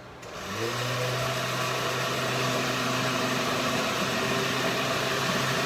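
Countertop blender switched on to blend a smoothie: its motor spins up over about half a second, then runs steady.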